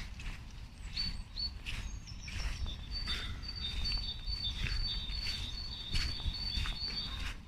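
A small songbird singing a long run of short, high notes that alternate between two pitches, over a low rumble of wind on the microphone.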